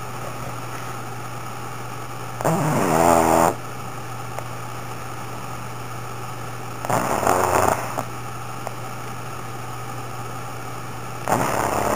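Pug snoring loudly in its sleep: three snores about four seconds apart, each lasting about a second, with a wavering pitched tone. A steady low hum runs underneath.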